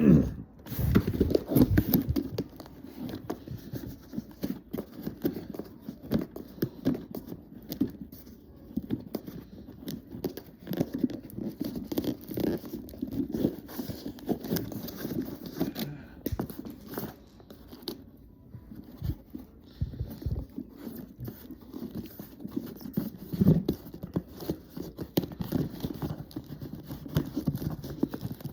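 Irregular rustling, scraping and clicking of a toy's cardboard box and packaging being handled as the RC monster trucks are taken out.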